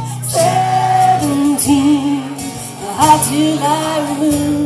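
A woman and a man singing a country ballad together over acoustic guitar, in long held phrases.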